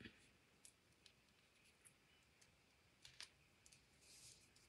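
Near silence with a few faint paper taps and rustles as hands press a freshly glued sheet of patterned paper flat onto cardstock.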